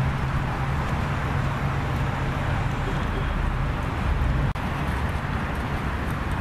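Steady rumble and hiss of road traffic with a low, even hum; the sound changes abruptly about four and a half seconds in.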